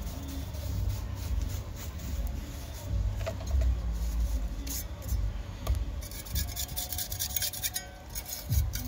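A pointed steel trowel scraping grooves into a freshly rendered cement wall, a dry scratching that starts about six seconds in, over a steady low rumble.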